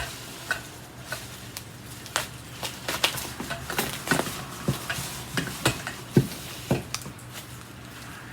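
Rustling and irregular clicks and knocks of packaging and hard vacuum-cleaner parts being handled during unboxing, over a faint low hum.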